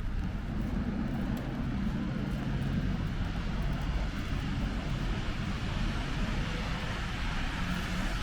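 Steady low rumble of road traffic on a wet city street, with tyre hiss building toward the end.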